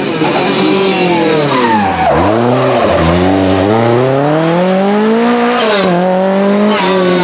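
Lancia Rally 037's supercharged four-cylinder engine coming off the throttle, its revs falling steeply, with a short blip. It then accelerates hard, rising through the revs with two quick upshifts near the end.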